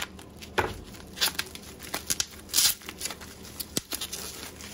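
Clear plastic packing wrap crinkling and rustling as it is pulled open and crumpled by hand, in a run of irregular crackles with a louder tearing rustle about two and a half seconds in.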